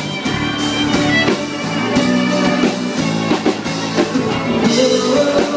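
Instrumental break in a country-rock song: electric guitar over a steady drum beat.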